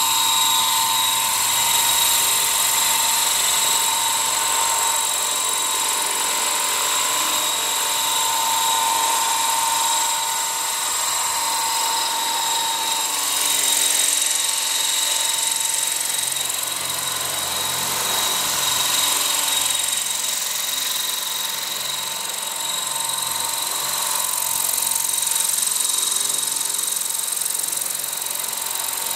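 Electric Align RC helicopter, a 550 converted to 600 size, in flight: a steady high whine from its motor, gears and rotor, wavering slightly in pitch as it manoeuvres.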